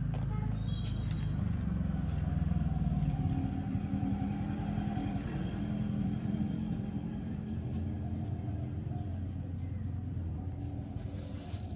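A motor vehicle's engine running with a low, steady hum. It grows louder about two to three seconds in, then slowly fades.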